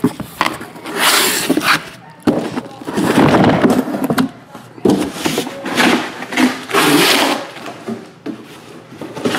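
Shrink-wrapped cardboard hobby boxes being handled and stacked: several irregular bursts of rustling and scraping about a second apart.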